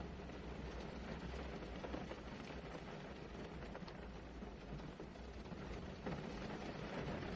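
Steady rain falling, an even hiss with faint scattered patter and a low rumble underneath.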